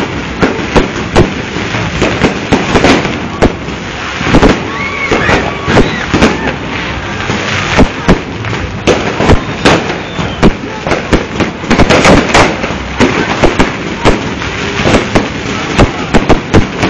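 Aerial fireworks going off in a dense, unbroken run of loud bangs and crackles, shell after shell bursting overhead.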